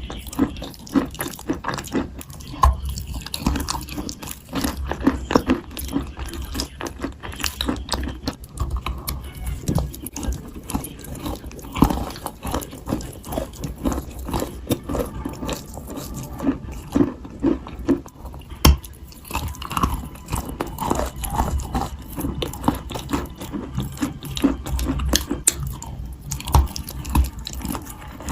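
A person biting and chewing dry, powdery Turkestan white clay, with a continuous run of irregular crunches and crackles.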